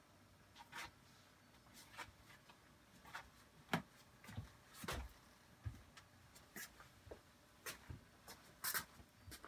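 Faint, irregular clicks and light scrapes, roughly one a second, from a slowly rotating display turntable.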